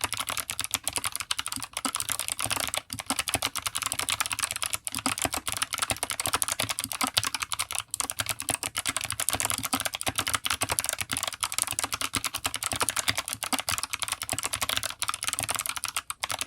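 Fast, continuous typing on an Anne Pro 2 mechanical keyboard with clicky Kailh Box White switches and PBT OEM-profile keycaps: a dense run of sharp key clicks, many a second, with a few very short pauses.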